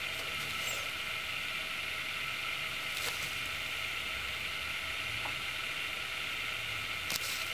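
Steady hiss at an even level, with brief faint clicks about three seconds in and again near the end.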